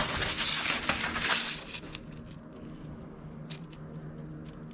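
Sheets of printer paper rustling and crinkling as pages are handled and turned, loudest in the first two seconds, then a few soft paper ticks over a faint steady hum.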